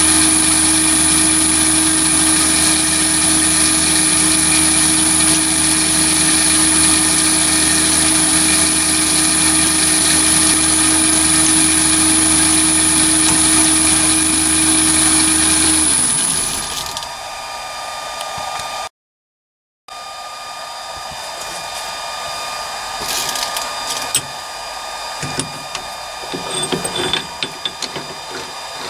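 Chinese mini lathe driven by a three-phase motor on a VFD, running while turning hard steel, with a steady high whine over the motor's hum. About 16 seconds in the motor winds down to a stop. Near the end come quieter clicks and knocks as the chuck key is worked in the three-jaw chuck.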